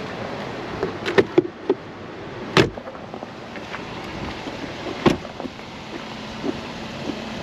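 SUV doors being handled and shut: a few latch clicks about a second in, then two heavy thumps of a door closing, at about two and a half and about five seconds, over a steady hiss.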